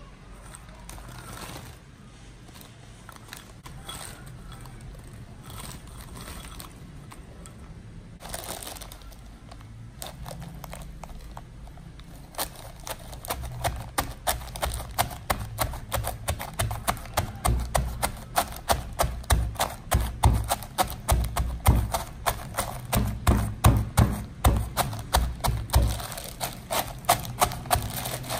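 A plastic bag rustles as mini Oreo biscuits are put into it. From about twelve seconds in, a stone pestle pounds the bagged biscuits in a stone mortar: rapid, repeated thuds with a crunch, going on steadily.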